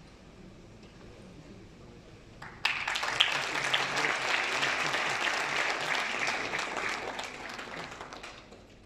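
Audience applauding. It breaks out suddenly about two and a half seconds in, holds steady, then fades away near the end.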